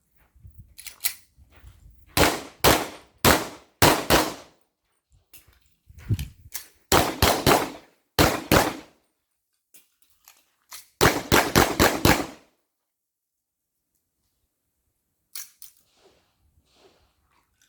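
AR-15-style rifle gunshots fired in irregular strings of single and paired shots, then a fast string of about six shots, each crack followed by a short ring. A few faint shots come near the end.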